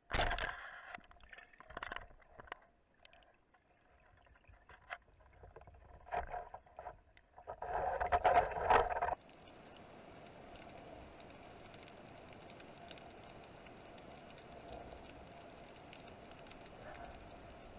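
Water sloshing and gurgling in irregular bursts with scattered clicks, loudest about eight seconds in, then a steady even wash of water noise from about nine seconds on.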